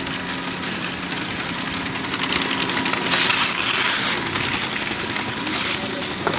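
Magic-carpet conveyor ski lift running: a steady motor hum with a fast, even rattle, the hum dropping away about three seconds in. Skis then hiss across the snow as the rider slides off the end of the belt.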